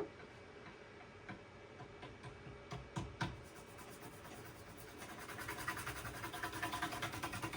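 A few faint clicks from handling a graphics card, then, from about halfway, a soft, rapid scratching that grows a little louder: a toothbrush scrubbing the card.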